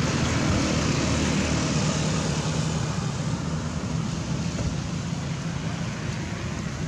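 Steady rumble of a running motor-vehicle engine with a broad hiss, easing off slightly toward the end.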